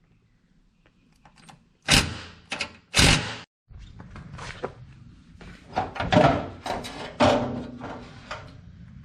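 Metal parts and hand tools knocking and clanking as car parts are unbolted and handled: two loud knocks about two and three seconds in, then a string of lighter knocks and rattles.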